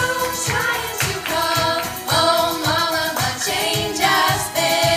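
A group of young female singers singing pop harmonies into handheld microphones through a PA, over a steady beat of about two pulses a second.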